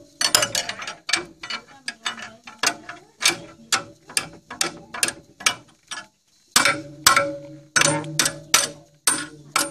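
Ratchet wrench clicking in repeated strokes as it turns a bolt on a tractor rotavator's tiller blades, each stroke followed by a brief ring. There is a short pause a little after the middle.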